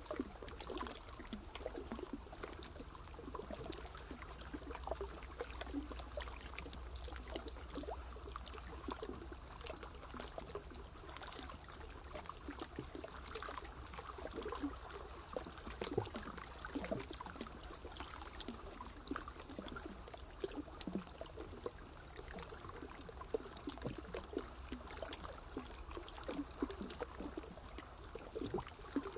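Water trickling, with many small irregular ticks and drips.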